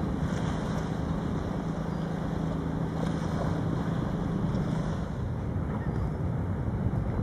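Engine of a small harbour passenger ferry running steadily as it passes, a low hum that fades about five seconds in, with wind buffeting the microphone.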